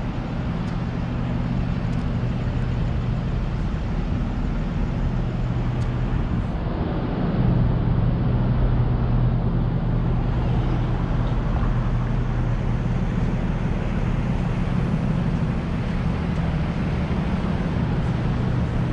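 Steady street traffic noise, with cars running along the road and a continuous low hum underneath. It gets a little louder about seven seconds in.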